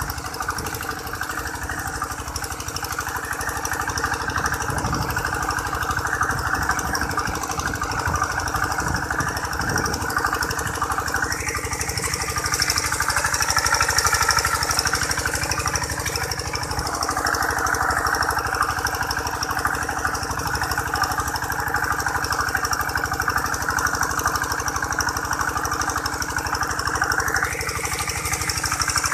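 Two-wheel hand tractor's single-cylinder diesel engine running steadily under load while ploughing a flooded rice paddy.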